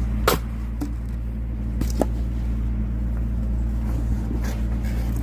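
An engine running steadily at a constant speed, with a few sharp cracks and knocks from splitting knotty oak firewood: one soon after the start, two about two seconds in, and a fainter one near the end.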